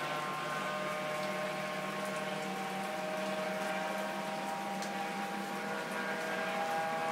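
Police helicopter in flight, its engine and rotors giving a steady drone with a whine whose pitch drifts slowly as it moves.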